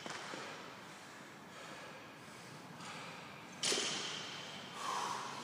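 A man breathing hard from exertion during a barbell workout. About three and a half seconds in there is a sudden loud breath as he pulls the bar off the floor.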